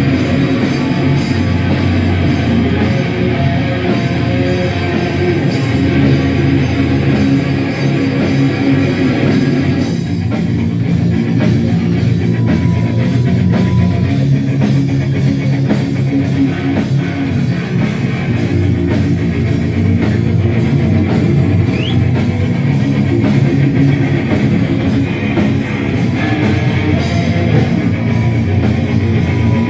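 Rock band playing live: electric guitars and a drum kit, steady and loud.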